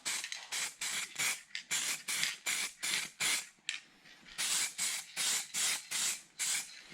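Spray paint hissing out of an aerosol can in many short quick bursts, about three a second, with a brief pause a little past halfway, as a small dashboard speaker cover is painted.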